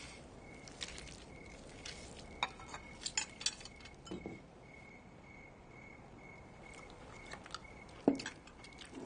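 Quiet dinner-table sounds: scattered small clicks and clinks of cutlery and dishes as food is handled, with a sharper clink about eight seconds in. Under them, a faint cricket chirps steadily about twice a second.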